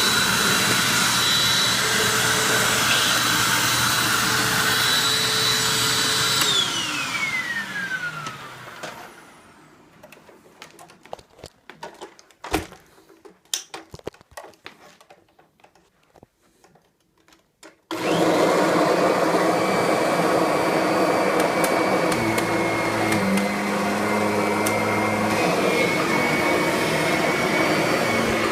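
Upright vacuum cleaners, a Hoover WindTunnel and a Kirby G6. The first runs steadily with a high whine, is switched off about six seconds in and spins down with a falling whine. After several seconds of scattered clicks and knocks, a vacuum switches on abruptly at full speed and runs steadily with a lower-pitched whine.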